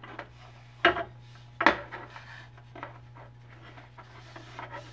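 Shop rag rubbing along a metal lathe bed and DRO scale, with a few sharp knocks about a second in and again a little later, then lighter scraping and ticks.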